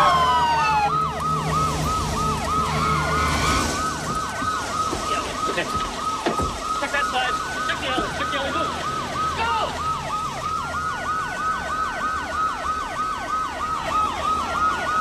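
Police car sirens: one yelping fast, about three to four sweeps a second, with a slower wail rising and falling every couple of seconds over it. A few short knocks and clicks come through around the middle.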